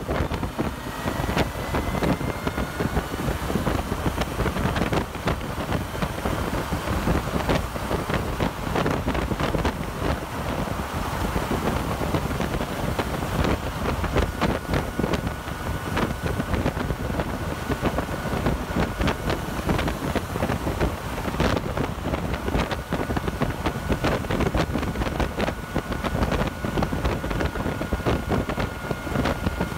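Heavy wind buffeting on the microphone of a 2014 Kawasaki Versys 1000 cruising at motorway speed in sixth gear. The motorcycle's engine and road noise run underneath, and a faint steady whine joins in about halfway.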